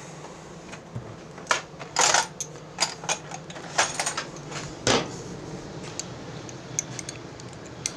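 Irregular metallic clicks and clinks of a socket ratchet being fitted and worked, snugging down the carburetor mounting nuts on a small Briggs & Stratton engine.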